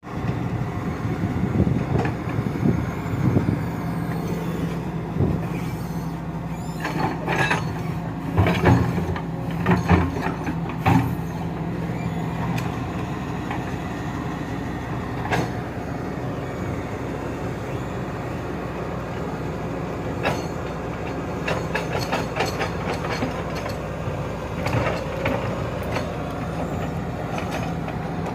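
Excavator's diesel engine running steadily, with repeated sharp metal clanks and knocks, most in a cluster about a quarter to a third of the way in and again in the second half.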